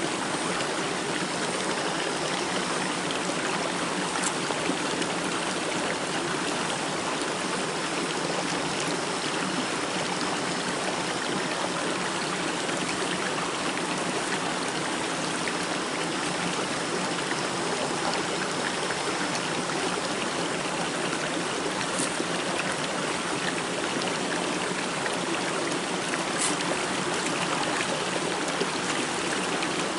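A small forest stream flowing steadily over rocks, an even rush of running water.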